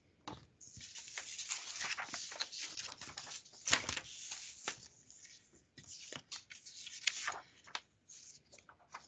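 Paper sheets rustling and sliding as printed worksheets are shuffled and a page is turned, with a few sharp crinkles. It thins out to a few faint ticks near the end.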